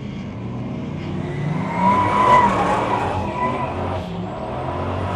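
Turbocharged LS1 V8 of a Holden WB ute running hard through a drift, with the tyres squealing as the car slides; the squeal swells to its loudest about two seconds in, then eases.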